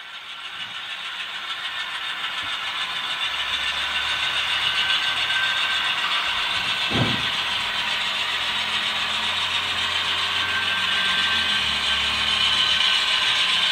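HO scale model Dash-9 diesel locomotive running along the track with its freight cars: a steady mechanical running sound that fades in over the first few seconds. A single short knock comes about seven seconds in.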